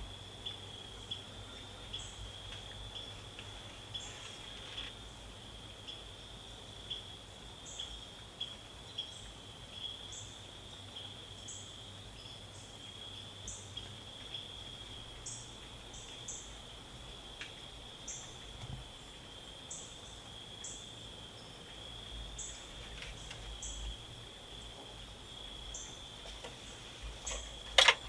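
Crickets singing a steady high trill, with scattered faint high ticks over it. A sharp knock sounds just before the end.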